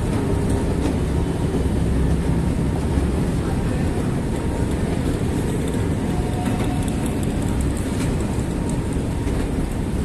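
Escalator running: a steady low mechanical rumble with faint scattered clicks.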